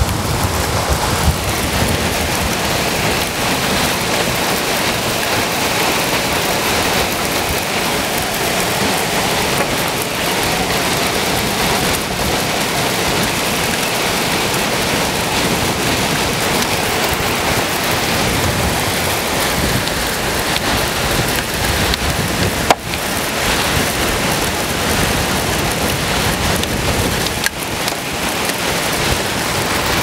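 Torrential wind-driven rain and high wind of a supercell's core: a loud, steady rush of rain beating on and around a vehicle. It is the sign of the 80 to 100 mph straight-line winds in the storm's core. One sharp click comes about three quarters of the way through.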